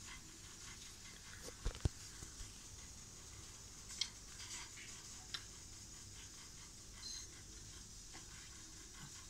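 Quiet room with small clicks from a baby sucking milk from a feeding bottle, and two sharp low thumps close together a little under two seconds in.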